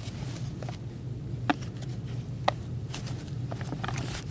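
Rustling of a cloth bag as a gloved hand rummages inside it to draw a card, with a few sharp clicks of cards knocking together, over a low steady hum.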